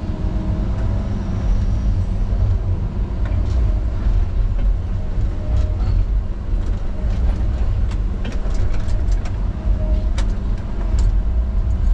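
Tigercat log loader's diesel engine running steadily, heard from inside the cab while the boom and grapple work logs. Scattered sharp clicks and knocks come in the second half.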